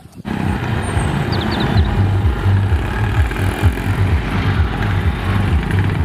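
Auto-rickshaw (tuk-tuk) engines running as a line of three-wheelers drives past on a dirt track, a rough, uneven low engine note.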